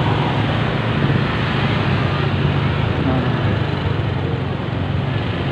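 Steady road-traffic noise heard from a moving vehicle: a low engine hum with road and wind noise.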